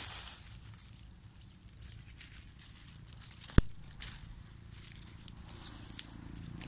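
Dry leaves and twigs crinkling and rustling as hands pile and shift them on a smouldering leaf fire, with scattered small crackles. One sharp snap about three and a half seconds in is the loudest sound, and two smaller ones come near the end.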